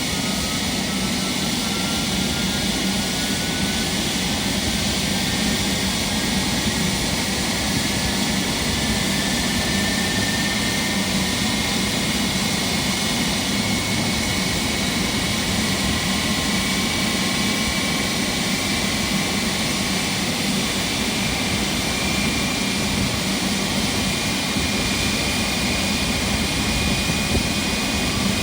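GE90-110 turbofan on a Boeing 777F spooling up during engine start: steady, loud jet noise with a whine that rises slowly in pitch.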